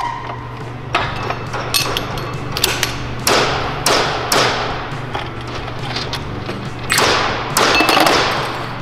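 Metal clanks and thuds from a lever-operated hand press and clutch parts being handled, about a dozen irregular knocks over a steady low machine hum.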